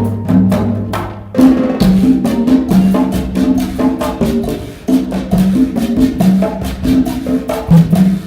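Afro-Caribbean percussion ensemble playing a steady, dense groove on pitched hand drums, with sharp wood-block-like clicks over the top. A low steady hum underneath stops about a second and a half in.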